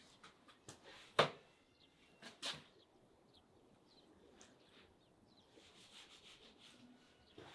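Chef's knife cutting beef heart on a wooden cutting board: a few sharp knocks of the blade on the board, the loudest about a second in and two more close together around two and a half seconds, then quieter slicing and rubbing.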